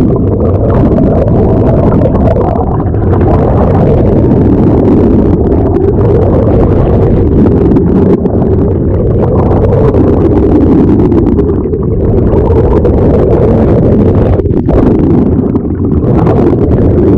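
Motorboat under way, its engine running steadily under heavy wind rumble on the microphone.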